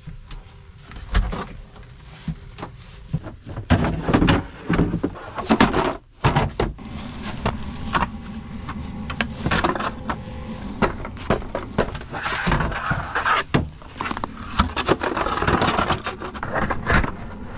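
Plastic traction boards being handled and shoved into icy snow against a van's stuck tire: a run of knocks and clicks, then longer scraping and crunching from about seven seconds on.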